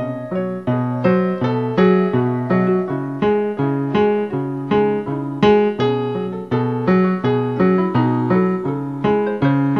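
Instrumental piano music: a steady run of struck chords, each fading before the next.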